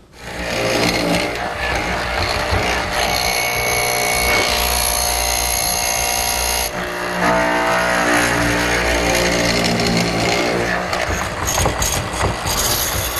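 Hollow-chisel mortising machine running, its square chisel and auger bit plunging into an oak armrest to cut half-inch square mortises. The motor starts about half a second in and runs steadily, and its tone changes about seven seconds in.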